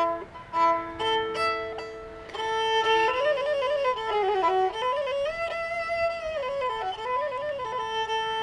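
Nepali sarangi bowed solo as the lead-in to a Nepali folk song. A few short separate strokes on two notes give way, about two seconds in, to a flowing melody with quick ornaments and slides, which ends on a long held note.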